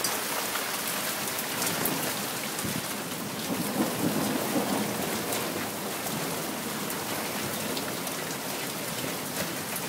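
Heavy rain falling steadily as a constant hiss, with a low rumble of thunder swelling about four seconds in.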